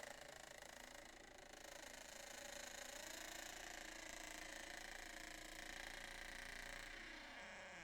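Door hinge creaking as the door swings slowly: one long, rasping creak that wavers a little in pitch and eases off near the end.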